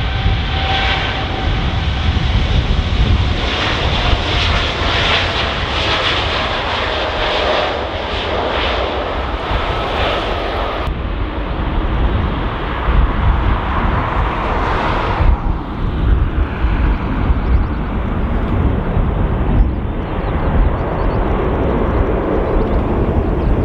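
Boeing 787-9 airliner's jet engines at takeoff power as it departs, a loud continuous rumble with a faint, slowly falling whine. The higher hiss thins out about eleven seconds in as the aircraft draws away.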